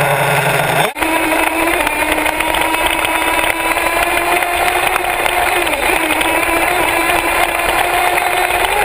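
HPI Savage radio-controlled monster truck's motor running at a steady pitch, heard close up from a camera mounted on the truck as it drives across grass. A sudden break about a second in, after which the note holds, dipping slightly near six seconds.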